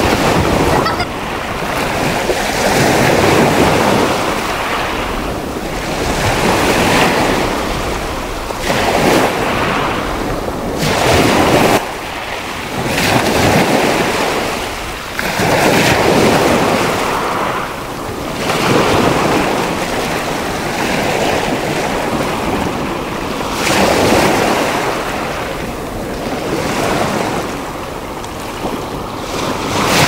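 Storm waves on the Black Sea breaking against a concrete seawall and sunbathing platforms. The surf surges and falls back about every two to three seconds, one breaker after another.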